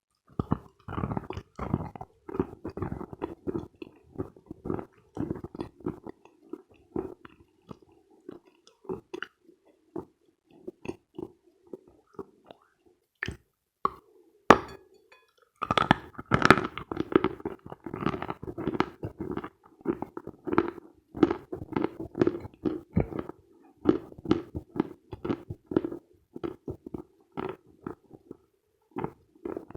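Close-miked crunching and chewing of a piece of dense, dry Khrapovsky natural chalk, in rapid crisp clicks. About halfway through, the chewing pauses for two loud sharp snaps, then the dense crunching resumes.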